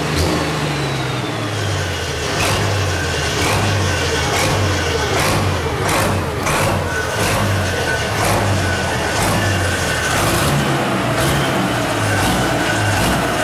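Pulling tractor's engine running and being revved up and down, with a falling whine over the first couple of seconds.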